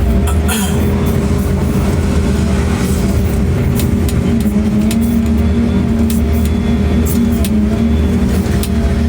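A large engine running steadily, with a low rumble and a constant hum, and occasional sharp clicks and knocks.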